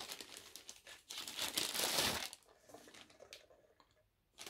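Packaging crinkling and rustling as it is handled, loudest in a crackly stretch a second or two in, then trailing off into fainter rustles.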